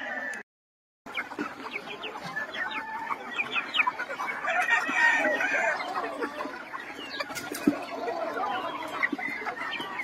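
A flock of young gamefowl chickens clucking and calling, many birds at once with short overlapping calls, some of them quick high rising or falling notes. A brief silence falls just after the start.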